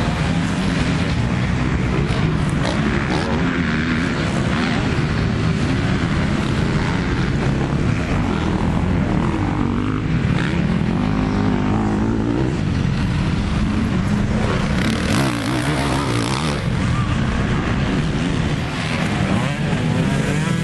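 Dirt bike engines running and revving up and down as motocross bikes ride a dirt track.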